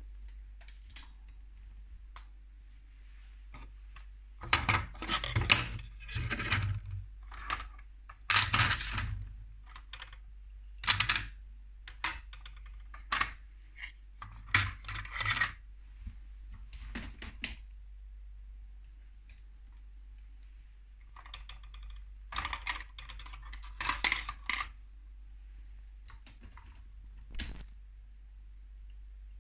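Hard plastic toy parts clattering and clicking in irregular bursts as pieces are handled and sorted, over a steady low hum.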